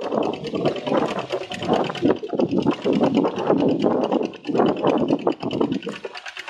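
Kubota ZT155 single-cylinder diesel on a two-wheel walking tractor running with a rapid, even chug while it pulls a plough through wet paddy mud, its loudness rising and falling.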